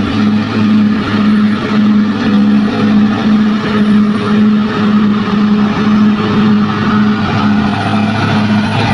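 Bulldozer's diesel engine running steadily under load, a low hum that pulses about twice a second over the clatter of the machine.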